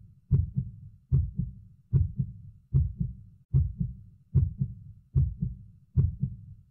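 Heartbeat sound effect: a steady deep lub-dub double thump, about 75 beats a minute.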